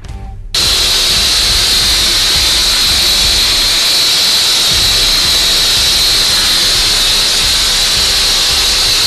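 Air-driven hopper spray gun hissing steadily as it sprays a stone-texture coating; the hiss starts abruptly about half a second in and holds even.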